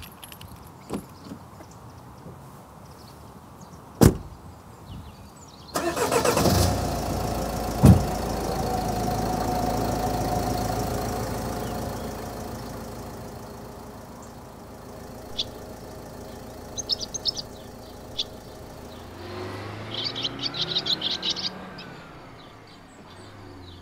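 A van door slams shut, then the Mercedes-Benz Vito 109 CDI's diesel engine starts, runs and pulls away, fading over several seconds. Small birds then chirp, with swallows twittering near the end.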